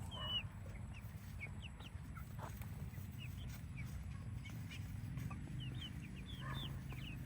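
Young chickens peeping: many short, high chirps scattered throughout, over a low steady background rumble.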